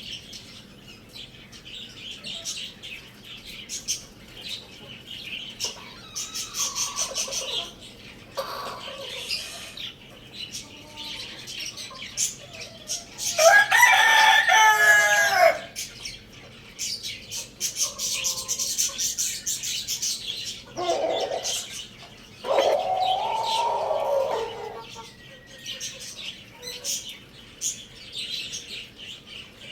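A rooster crowing: one loud crow about halfway through and a second, shorter crow later, with shorter clucking calls between and small birds chirping steadily in the background.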